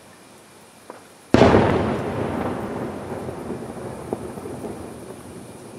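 An aerial firework shell bursting with a single loud boom about a second and a half in, followed by a rumbling echo that fades away over the next few seconds. A faint pop comes just before the boom.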